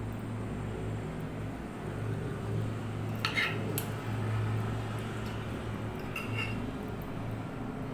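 Cutlery clinking against a dish: a few short ringing clinks about three seconds in, and again about six seconds in, over a steady low hum.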